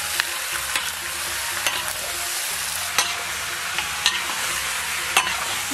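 Chicken pieces sizzling in hot oil in a large iron wok, being frying dry of their moisture, while a metal spatula stirs them, scraping and clicking sharply against the wok now and then.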